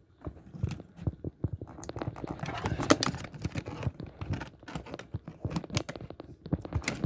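Plastic bottom cover of a laptop being pried off by hand: a run of irregular clicks and snaps as the retaining clips let go, mixed with knocks of handling, growing busier about two seconds in.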